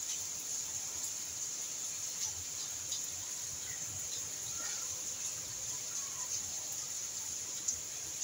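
Steady outdoor background: an even high hiss with a few faint, brief chirps.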